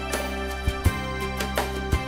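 Background music over a credits roll: steady held low notes with a few sharp accents, about two-thirds of a second in, just under a second in and near the end.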